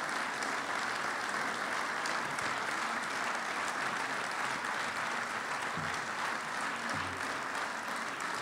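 Audience applauding, a steady, even clapping throughout.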